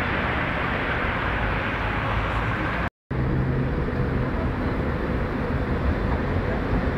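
Steady outdoor city street noise, an even rushing hiss with traffic in it. It is broken by a brief dropout at an edit cut about three seconds in, and after the cut a low steady hum joins it.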